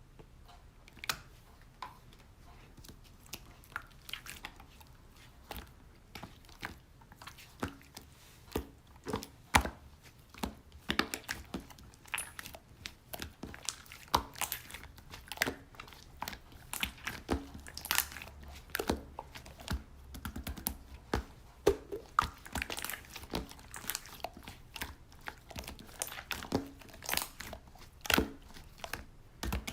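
Slime being pressed and worked by hand, giving irregular sticky clicks and pops, sparse at first and coming thicker from about a third of the way in.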